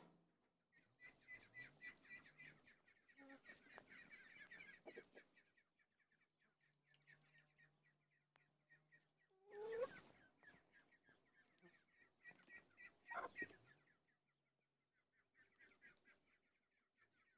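Chickens in a flock clucking, in stretches of soft, rapid clucks. About ten seconds in comes a loud call rising in pitch, and another loud call about three seconds later.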